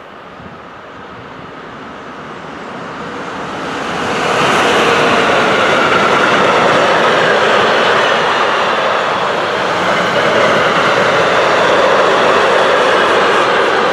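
A freight train of double-deck car-transporter wagons approaches, growing louder over the first four seconds or so. Its wagons then roll past close by with a steady, loud noise of wheels on rail.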